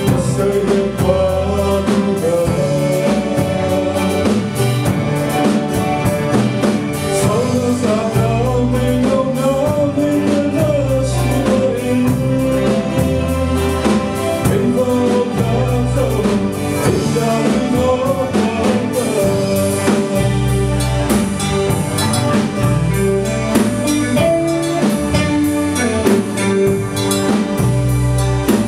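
A male solo singer sings a gospel song into a handheld microphone through the PA, backed by a live band with a drum kit and guitars playing a steady beat.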